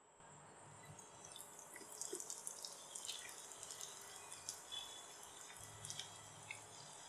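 Breadcrumb-coated potato balls deep-frying in hot oil: a sizzle with a busy scatter of sharp crackles. It starts just after the beginning and grows louder about two seconds in.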